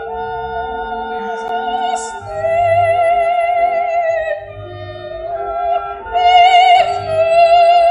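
Operatic soprano voice singing long held notes with a wide vibrato over soft orchestral accompaniment, swelling louder about two seconds in and again near the end.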